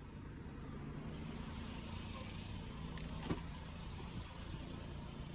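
A car door being opened: sharp latch clicks about three seconds in, over a steady low hum.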